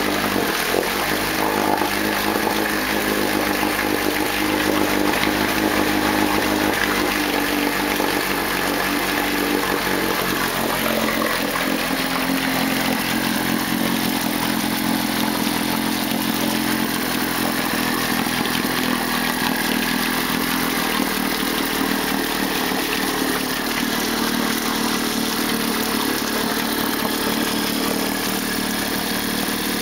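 Martin "75" two-cylinder two-stroke outboard motor running steadily, freshly rebuilt and being broken in. Its speed shifts slightly near the start and again about twelve seconds in.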